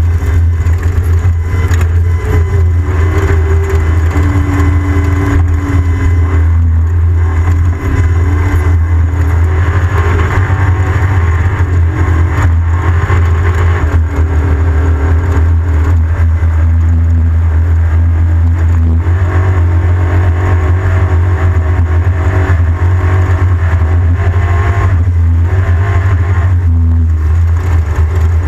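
Off-road race vehicle's engine running hard, its pitch rising and falling with the revs over a loud, steady low rumble.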